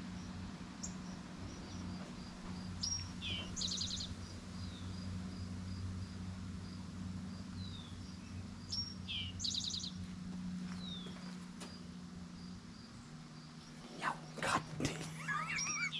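A songbird singing the same short phrase twice, a rising chirp, a falling note, then a quick high trill, over a steady low hum. A few sharp knocks and a wavering call come near the end.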